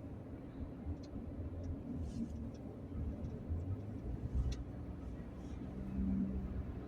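Steady low rumble of a vehicle on the move, with a few faint clicks scattered through it.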